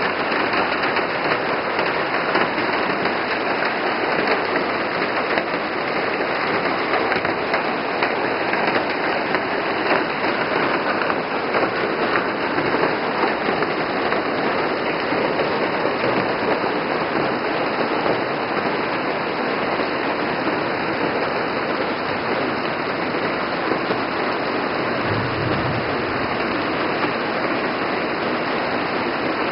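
Heavy rain falling steadily on trees and rhododendron leaves, with water streaming off a roof edge.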